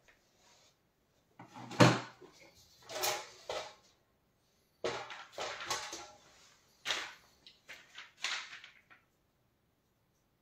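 Artist's paintbrush stroking paint onto a wall: several short scratchy swishes of about half a second to a second each, with pauses between, the loudest about two seconds in.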